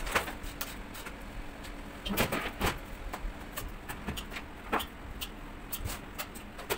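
Scattered clinks and scrapes of a metal spoon against a large steel pot and metal baking trays as minced-meat filling is spooned into fried eggplant halves, a few knocks louder than the rest, over a faint steady hum.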